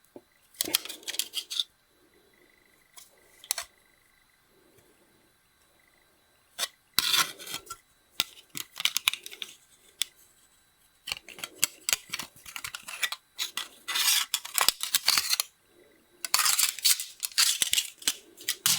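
Thin loose aluminium plates clinking and rattling against each other as they are handled, in repeated bursts of light metallic clatter with short pauses between.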